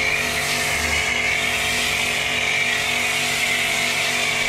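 Kärcher electric pressure washer running steadily under load, its motor humming beneath the loud hiss of snow foam spraying from a foam lance.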